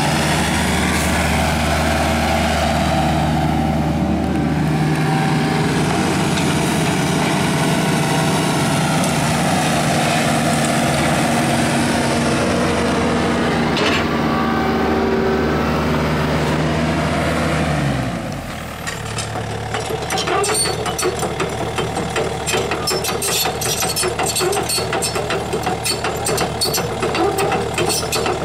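Kubota U-55 mini excavator's diesel engine running steadily. About 18 seconds in the sound changes to a rougher, rattling clatter with rapid ticks.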